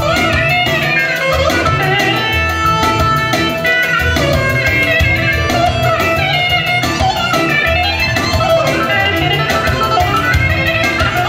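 Live Azerbaijani band music: a Korg Pa800 keyboard playing a fast, ornamented solo melody with sliding notes, over a steady drum accompaniment.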